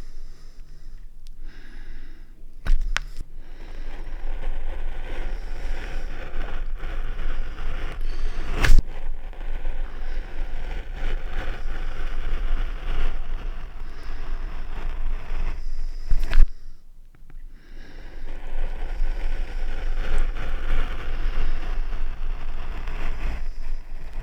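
Hand tool scraping and rubbing against a linoleum block in steady strokes during linocut printmaking, pausing briefly twice, with three sharp clicks of the tool or block being knocked.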